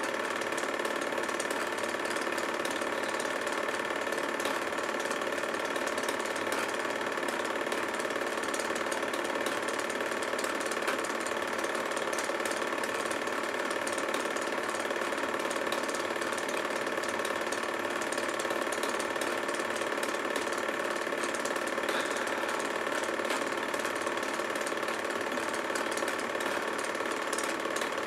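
Film projector running: a steady motor hum with the fine, even clatter of the film-advance mechanism. It does not change when the picture cuts.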